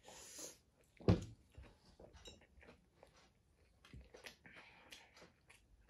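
Faint chewing and small wet mouth clicks of a person eating a burger, with one short, louder thump about a second in.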